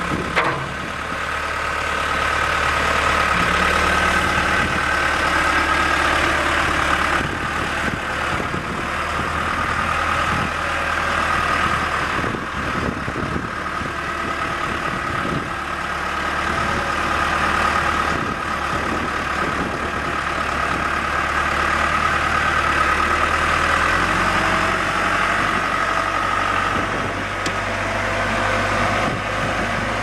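The John Deere 4045T four-cylinder diesel of a 2003 John Deere 410G backhoe running steadily at low speed, with a steady higher whine above the engine note. There is a short clank near the start, and the engine speed steps up a little about three-quarters of the way through.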